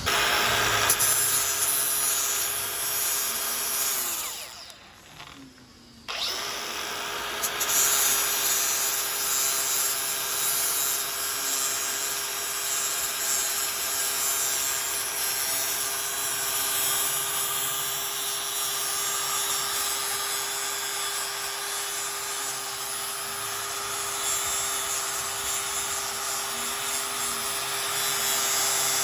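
Angle grinder grinding down a weld bead on steel, the motor whining steadily under the abrasive rasp of the wheel on the metal. It drops away briefly about five seconds in, then comes straight back and grinds on.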